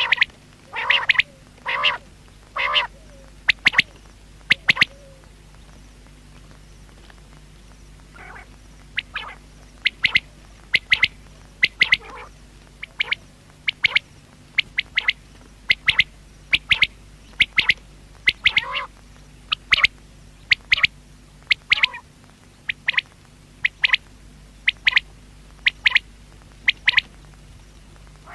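Common quail calling: short, sharp, loud notes repeated over and over in quick groups of two or three, with a few lower throaty notes near the start and a brief pause a few seconds in.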